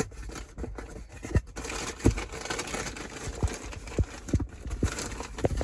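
Plastic bag crinkling and rustling as a new exhaust flap valve is taken out of its cardboard box, with a few short knocks from handling the box and part.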